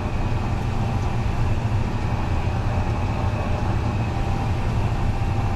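Fendt 933 Vario tractor's six-cylinder diesel engine and drivetrain droning steadily, heard from inside the cab while driving across the field, with a faint steady high whine above the low hum.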